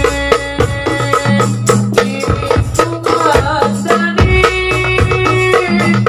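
Darbuka played in a fast dangdut koplo rhythm with quick strokes and rolls, over frame drums and a melodic accompaniment with steady low bass notes.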